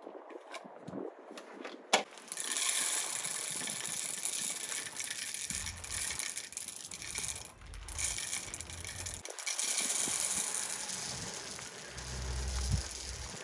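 Bird seed pouring into a bird feeder: a few clicks as it is handled, then a steady dry rattling hiss of grains running in.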